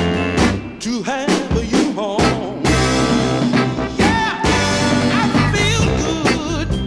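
Soul/R&B record playing from a 7-inch 45 rpm vinyl single: a full band with regular drum strikes and wavering melody lines over it.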